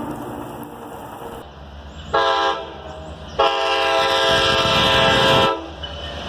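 Norfolk Southern locomotive's Nathan K5LA air horn giving a short blast about two seconds in, then a long blast of about two seconds, over the low rumble of the oncoming train.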